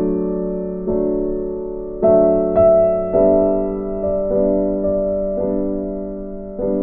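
Soft background music: gentle chords struck about once a second, each one fading away before the next.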